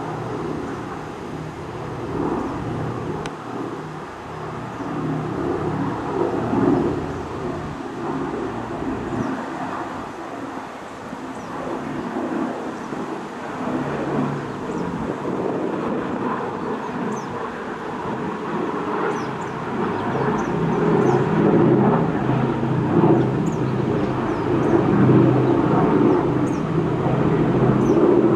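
Boeing B-17 Flying Fortress's four radial engines droning as it climbs out overhead after takeoff, growing louder in the last third.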